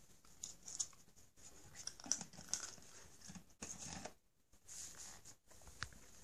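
A cat crunching and chewing treats: a run of small, irregular crunches in short clusters.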